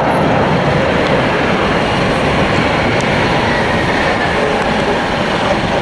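McDonnell Douglas MD-11 trijet's engines, a loud steady roar as the airliner rolls out after landing.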